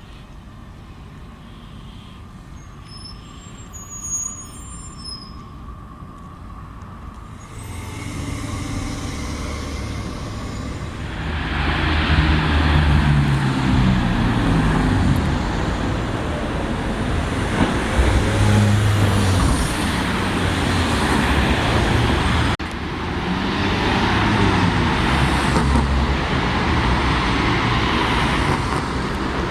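Heavy vehicle engine running close by amid street traffic, building up about seven seconds in and staying loud, with an abrupt break about two-thirds of the way through. Before it, quiet street sound with a few faint high chirps.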